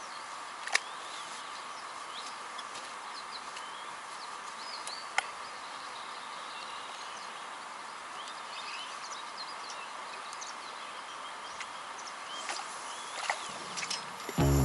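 Several small birds chirping and singing over a steady outdoor hiss, with two sharp clicks, one about a second in and one about five seconds in.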